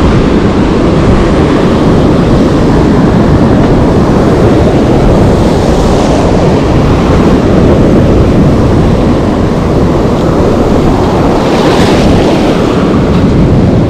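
Loud, steady rushing of wind buffeting the microphone, heaviest in the low range, swelling briefly about halfway through and again near the end.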